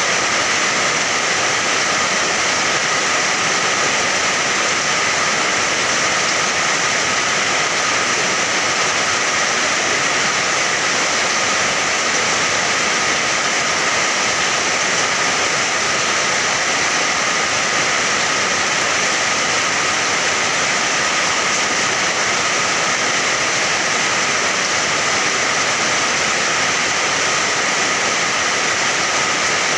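Steady rain, a dense, even hiss of water that neither swells nor breaks off.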